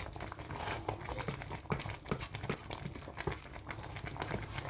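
A wooden spoon stirring ogbono soup in a metal pot, making many small irregular clicks and scrapes.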